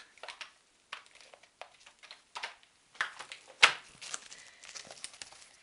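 Handling noise of unpacking: a clear plastic tray of small pigment jars and its plastic wrapping being handled, with scattered clicks and crinkling, busier in the second half, and one sharp knock about three and a half seconds in.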